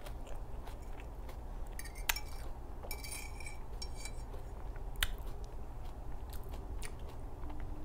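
Chewing with the mouth closed, and a metal fork clicking and scraping on a ceramic plate as the last of the cream pasta is gathered up, with a few sharp clicks about two and five seconds in.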